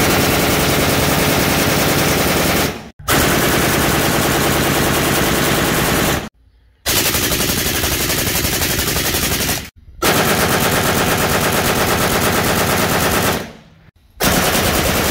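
Full-automatic gunfire from automatic rifles, AK-pattern rifles among them. It comes as five long bursts of rapid, continuous shots, each a few seconds long, with short breaks between them.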